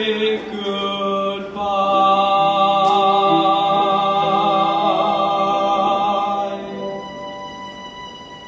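Teenage male soloist singing a long held final note, with other voices sustaining notes beneath; the singing fades away about seven seconds in.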